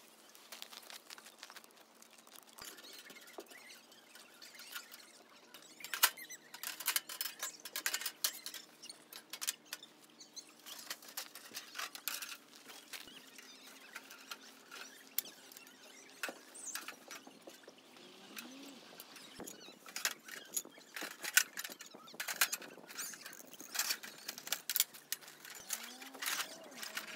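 Handling noise as a folded steel fire-pit stove is packed into a fabric carry case on gravel: rustling fabric and crunching stones, with scattered clicks and knocks. It gets busier about six seconds in.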